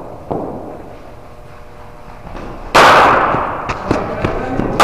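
Cricket bat striking a leather ball: sharp cracks that echo round a large indoor net hall, a smaller one early on and a loud one a little under three seconds in, with another crack right at the end.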